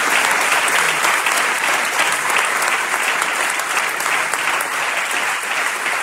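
A large seated audience applauding: dense, even clapping that eases slowly in loudness.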